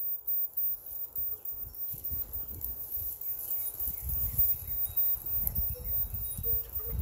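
Wind buffeting the microphone outdoors as a low, uneven rumble that grows stronger about two seconds in, with a few faint high chirps in the middle.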